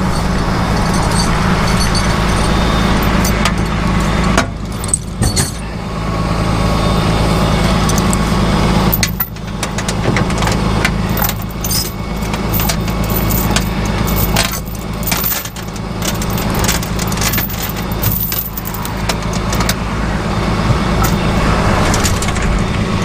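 Rollback tow truck's engine idling steadily, with scattered metal clanks and jangling of chains and hooks as its under-bed toolbox is opened and gear handled.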